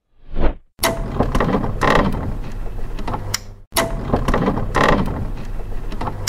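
Intro sound effect for an animated logo: a short whoosh, then a loud mechanical clatter full of sharp clicks lasting about three seconds, played a second time straight after.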